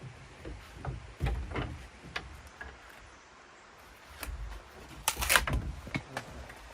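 Laurel branches knocking and scraping against the woven twigs as they are worked into place, with a run of light wooden knocks and a louder rustling scrape about five seconds in.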